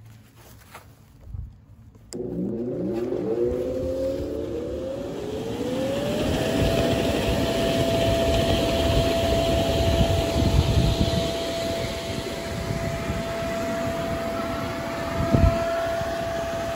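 Electric inflator blower of an inflatable paint booth switching on about two seconds in: its motor whine rises in pitch over a few seconds, then holds a steady high tone over a rush of air as the booth inflates. A single thump near the end.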